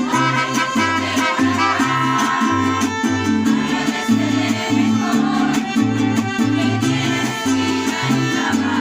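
Mariachi band playing an instrumental passage: violins over strummed guitars, with a plucked bass line of short, evenly paced notes.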